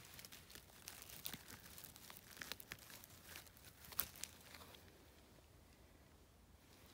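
Faint crackling and rustling of dry twigs and pine-needle litter as a hand works through fallen branches and pulls up a bay bolete, with a sharper click about four seconds in. It falls to near silence after about five seconds.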